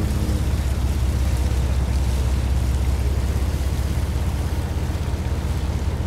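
Steady low rumble of a boat's motor running.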